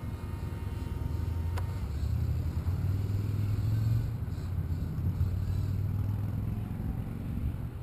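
Low rumble of wind buffeting the microphone, swelling a few seconds in. Early on a faint high steady whine cuts off with a click about one and a half seconds in.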